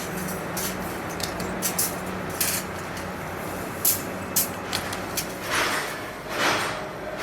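Wire-mesh spot welding machine at work: a steady electrical hum with scattered sharp clicks, then from about five seconds in, hissing bursts about once a second.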